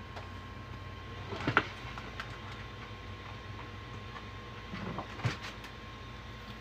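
3D printer running with a steady hum and faint steady whine, broken by two short clattering knocks, one about a second and a half in and another near the end.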